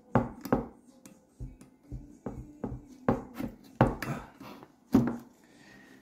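A dozen or so irregular clicks and knocks of hands and pliers working a connector pin on a circuit board, wiggling it while it is desoldered.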